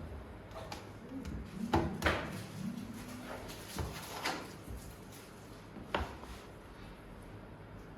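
Knocks and clatter of DVR rack parts being handled and fitted together during assembly. There are two close together about two seconds in, two more around four seconds, and a single sharp one at six seconds.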